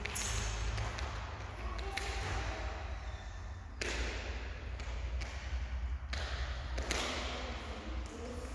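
Thuds of feet landing on BOSU balance trainers during hopping drills, about four sharp landings a couple of seconds apart, each echoing in a large gym hall, over a steady low hum.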